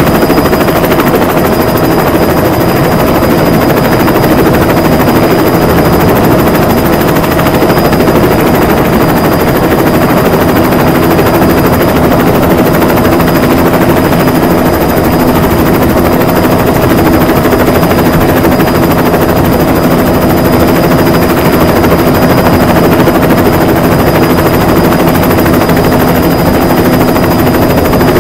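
Diesel train running steadily: a loud, even mechanical rumble with a fast pulsing and a few steady whining tones over it.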